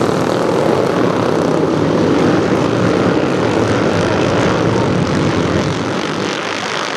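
A pack of historic racing motorcycles running hard through a corner, their engines overlapping in a dense, continuous racket that eases off a little near the end as the pack pulls away.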